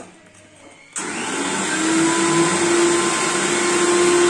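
An electric motor switches on about a second in and runs steadily, a loud whooshing noise with a steady hum in it, like a blender or fan.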